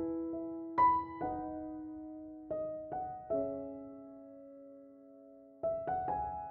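Slow, gentle piano music: a few notes struck at a time and left to ring out, with a long chord fading away in the middle before a new phrase near the end.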